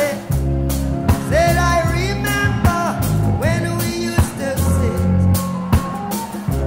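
Rock song with a steady bass, drums and a singing voice.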